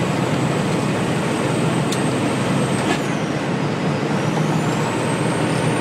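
Tractor-trailer's engine and road noise heard from inside the cab while cruising at steady speed. A faint high whistle dips and climbs back about halfway through, and two light clicks fall around two and three seconds in.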